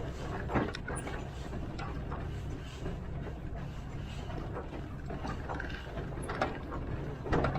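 1927 Vulcan 0-4-0T narrow-gauge steam locomotive heard from around the cab: a steady low rumble with a few sharp metallic knocks and clanks, the loudest near the end.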